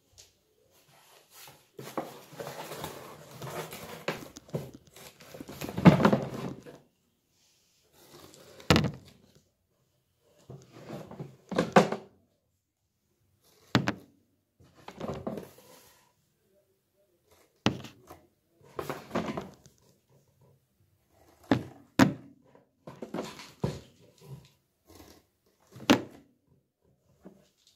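Cardboard box and packing rustling, then plastic supplement jars set down one by one on a hard table, each landing with a short, sharp knock, several seconds apart.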